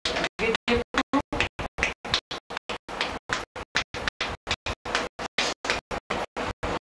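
Room sound with faint voices, chopped up by rapid, regular dropouts to silence about seven times a second: a faulty audio track.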